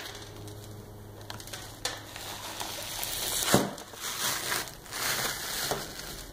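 Shattered ceramic strike face and polymer fibre backing of a shot ceramic level IV armor plate crunching and crackling as it is pulled apart by hand, with a sharp click about two seconds in and louder crunching from about halfway.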